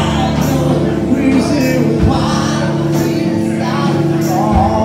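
Live rock band playing loudly with a lead vocal over bass and drums, cymbals splashing.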